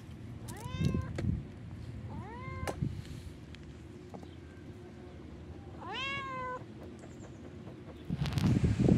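A cat meowing three times, each short meow rising in pitch and then holding. A louder rustling clatter comes in near the end.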